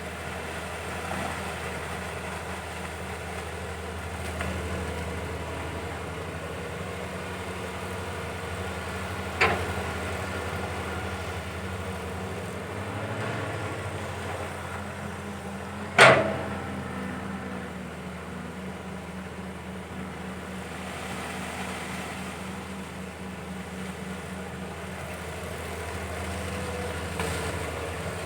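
Caterpillar 320 hydraulic excavator's diesel engine running steadily while digging, with a sharp knock about a third of the way in and a louder one just past halfway.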